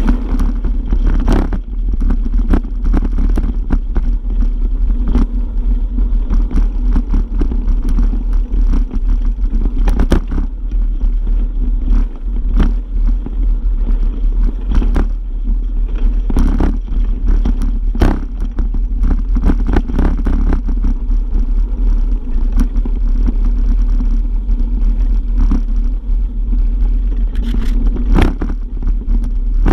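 Bike rolling over a rocky dirt trail, heard from a handlebar-mounted camera: a steady low rumble of wind and vibration with frequent short knocks and rattles as the front tyre hits stones.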